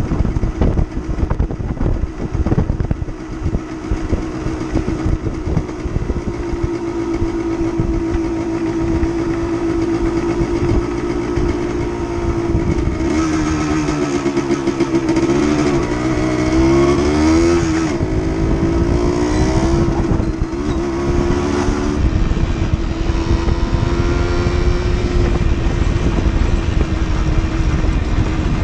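Suzuki TSR motorcycle engine running while riding, with wind buffeting the microphone. The engine note is steady at first, then rises and falls repeatedly with the throttle through the middle before settling again.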